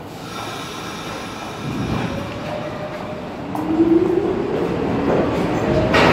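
R46 subway train pulling out of the station. Its traction motors give a whine that climbs steadily in pitch from about halfway through, over growing wheel and rail rumble and a couple of sharp clacks.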